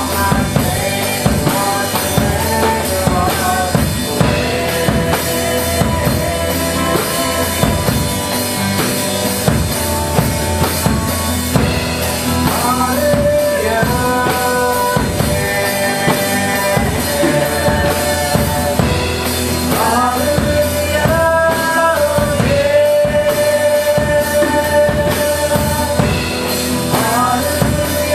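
Christian rock praise band playing live: drum kit with bass drum and rimshots under guitars, with a melody of long held notes carried over the top.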